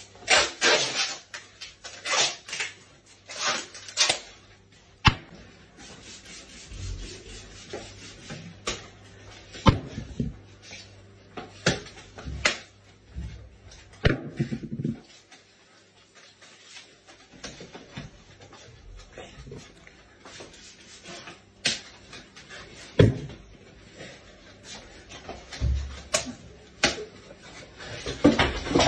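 Home haircut sounds: about twenty sharp, irregular clicks and snips from the cutting, with soft rustling between them and a quieter stretch about halfway through.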